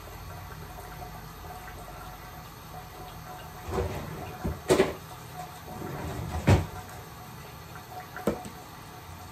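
Teeth being brushed with a manual toothbrush over a steady background hum, with a few short, sudden sounds in the middle and one more near the end.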